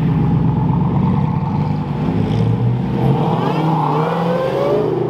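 Cars driving past one after another at low revs, engines running steadily. About three seconds in, a rising whine joins the engine note as a supercharged Dodge Challenger pulls by.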